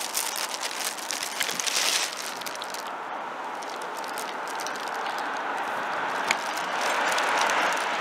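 Street traffic: a passing car's tyre and engine noise, swelling toward the end. A few sharp clicks sound in the first two seconds.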